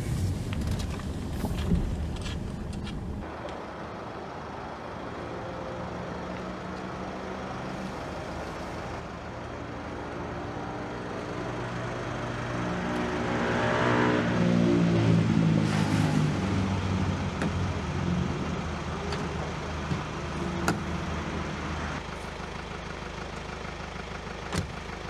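Car on the road, first heard as road noise from inside the car, then a car approaching and pulling up, its engine growing louder to a peak about halfway through and then running quieter. A few sharp clicks near the end.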